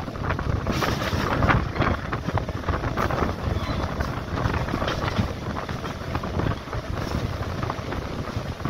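MEMU electric train running along the track, heard from an open window: a steady rumble of wheels on rails, with wind buffeting the microphone.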